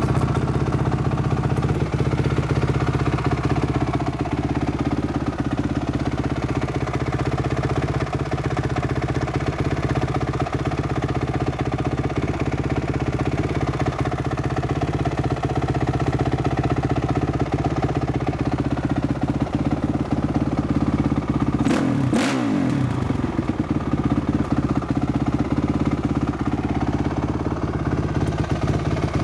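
2006 Honda CRF450R's single-cylinder four-stroke engine idling steadily, with one quick blip of the throttle late on that rises and falls back to idle.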